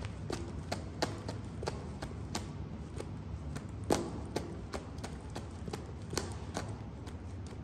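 High-heeled boot stepping on and crushing a pile of chalk pieces on a concrete floor: irregular sharp cracks and crunches of chalk breaking, with heel taps, the loudest crack about four seconds in.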